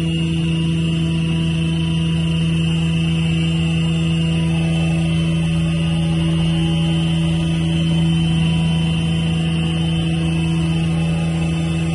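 Four-line facial tissue folding and counting machine running at speed: a steady, loud mechanical hum with a constant high whine over it.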